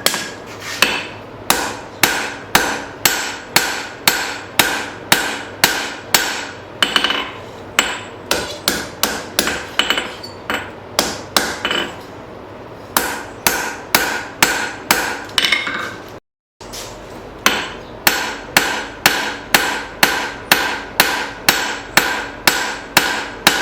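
Rounding hammer striking hot leaf-spring steel on an anvil, steady blows about two a second with the anvil ringing after each, rounding and spreading the end of the bar. The hammering stops briefly twice partway through.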